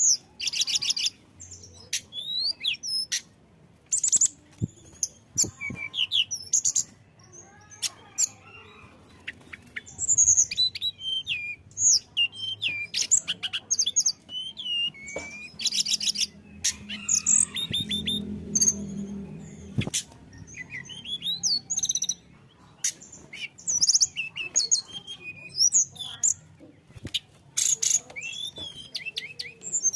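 Tledekan gunung songbird in full song: a fast, varied string of high chirps, sweeping whistles and rapid rattling trills, delivered in bursts with short pauses.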